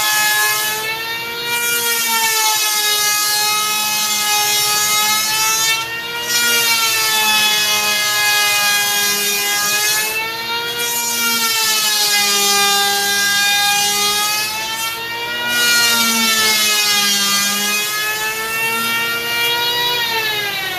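Electric hand planer cutting the foam deck of a surfboard blank: a steady motor whine that sags in pitch as the blades bite into the foam and climbs back between passes, several times over. Near the end the pitch falls away steadily as the motor winds down.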